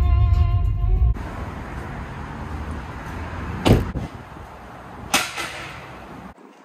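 Music from a car stereo cuts off abruptly about a second in, leaving a quieter outdoor hiss. Two sharp knocks follow, one near the middle and one about five seconds in, from car doors being shut.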